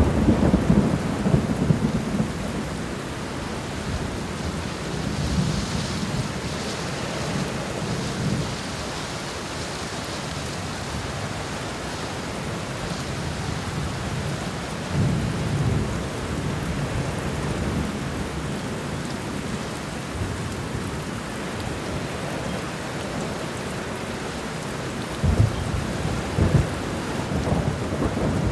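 Steady heavy rain with rolling thunder, the low rumbles swelling near the start, about halfway through, and again near the end.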